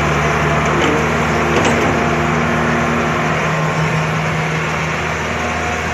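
Heavy diesel engine of a tracked excavator running steadily at a constant speed.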